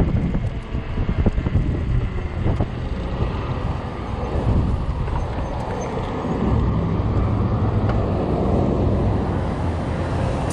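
Strong gusty wind buffeting the microphone during a ride on a fat-tire e-bike: a loud, uneven rumble that swells and eases with the gusts, with some scattered knocks.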